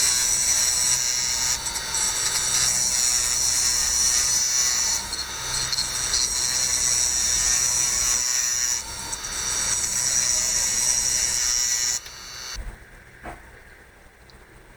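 A small high-speed rotary power tool runs and cuts, with a steady high-pitched whine that shifts slightly a few times as it bites. It stops about twelve seconds in.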